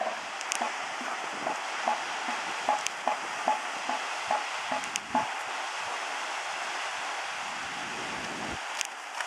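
Male northern elephant seal's threat call: a rhythmic series of short pulses, about three a second, lasting about five seconds, then stopping. A steady hiss lies under it.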